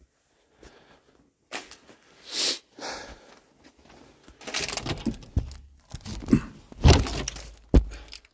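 Irregular thumps, knocks and scrapes of someone moving about a bare room. They grow busier from about halfway in, with a few sharp knocks near the end.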